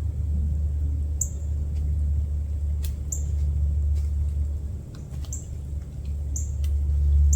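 A steady low rumble, with a small bird chipping high and short about once a second above it.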